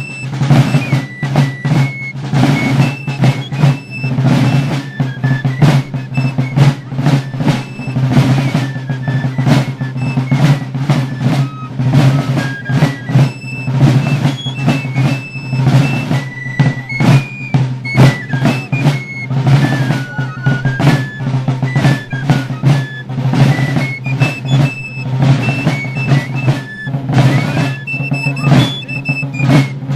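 A fife and drum band playing a march: several fifes carry a high melody over brass-shelled side drums beating a dense, steady rhythm.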